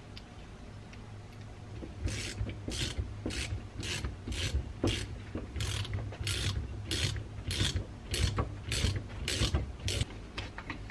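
Socket ratchet wrench clicking in quick back-and-forth strokes, close to two a second, starting about two seconds in, as it turns a nut on a cast-iron hydraulic control valve.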